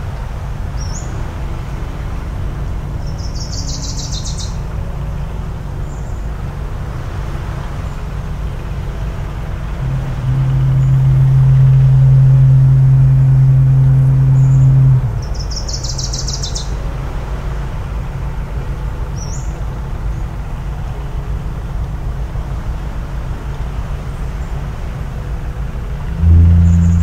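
Foghorns sounding over a steady low rumble of surf: one long steady low blast of about five seconds near the middle, and a second, deeper horn beginning just before the end. A bird gives short high calls a few times.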